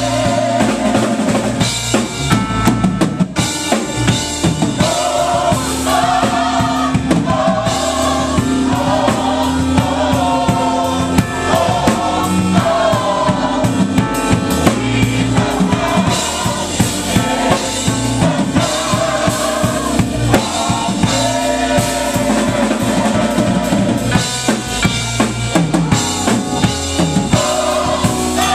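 Live gospel music: a drum kit with bass drum and snare keeping the beat under singing.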